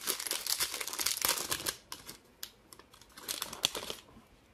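Foil wrapper of a Bowman baseball card pack crinkling as it is torn open and the cards are pulled out. Dense crinkling for the first two seconds, then sparser, with another short burst of crinkling about three seconds in.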